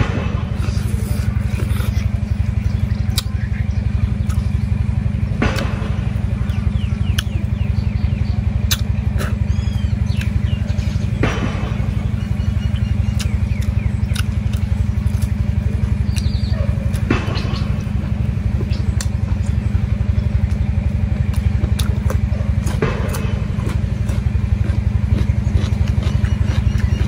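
A steady low machine-like rumble runs throughout, with scattered sharp clicks and smacks from pork bones being pulled apart and chewed.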